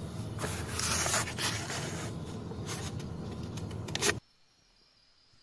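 Origami paper being handled and folded: a dense rustling and scraping with crisp crackles, cutting off abruptly about four seconds in.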